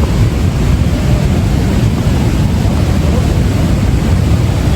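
Barachukki waterfall in heavy flow: a loud, steady rush of falling water, heaviest in the low end.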